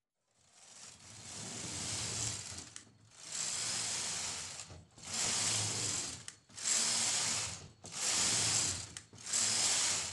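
Domestic flatbed knitting machine knitting rows: the carriage is run back and forth across the metal needle bed, each pass a rushing mechanical clatter of the needles. There are about six passes with short pauses between them, the first the longest and the later ones quicker.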